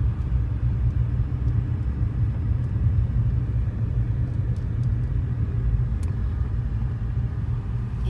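Steady low rumble of a car driving slowly over an unsealed driveway, heard from inside the cabin, with a few faint clicks.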